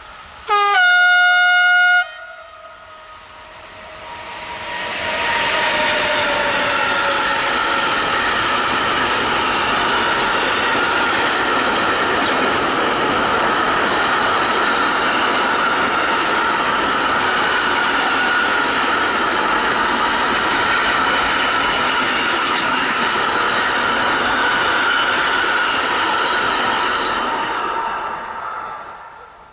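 Siemens Vectron electric locomotive sounds one horn blast of about a second and a half, then the locomotive and its long train of container and tank-container wagons roll past steadily for over twenty seconds, building up a few seconds in and fading away near the end.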